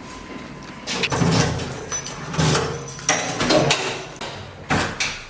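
A run of clunks, rattles and jingling handling noises, starting about a second in and loudest around the middle.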